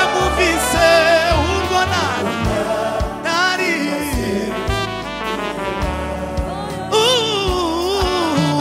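Live gospel band playing: a male lead singer sings over backing vocalists, keyboard, bass and a drum kit, with the kick drum beating steadily underneath.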